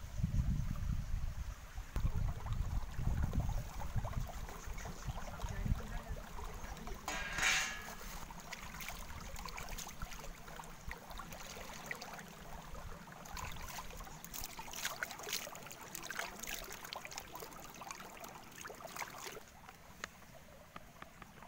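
Shallow stream running over rocks, with splashing from hands washing chicken pieces in a metal plate in the water, heaviest near the middle and toward the end. A low, uneven rumble fills the first several seconds.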